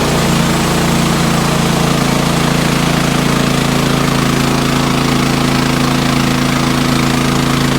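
Engine running steadily at a constant speed, an even hum that holds one pitch throughout.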